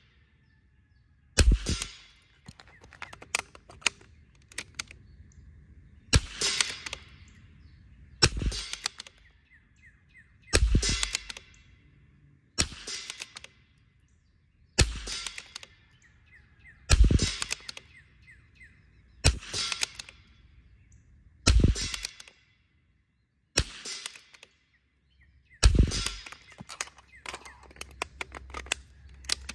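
Custom Vudoo bolt-action .22 LR rimfire rifle firing a timed string: a sharp shot about every two seconds, with fainter clicks between shots as the bolt is cycled.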